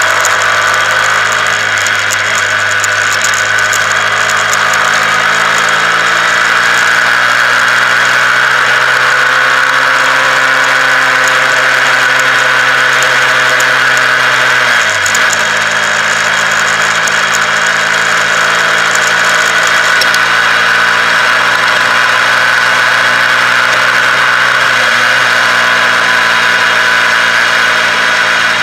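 Honda CBR125R's single-cylinder four-stroke engine running under way, its note slowly rising and falling, with a brief dip about halfway through.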